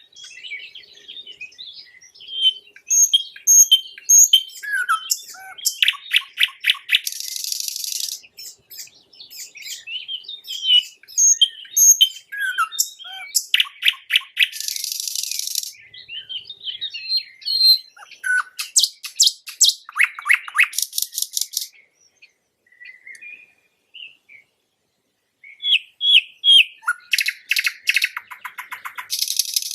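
Common nightingale singing: varied phrases of whistles and chirps mixed with fast rattling runs of rapidly repeated notes, separated by short pauses.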